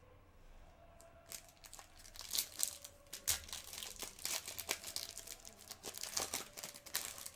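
A trading card pack's foil wrapper being torn open and crinkled in the hands, with cards handled, in quick irregular crackles that start about a second in.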